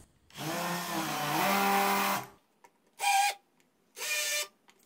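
Makita 18V cordless impact driver spinning a countersink bit into screw holes in plywood. One steady run of about two seconds, then three short bursts.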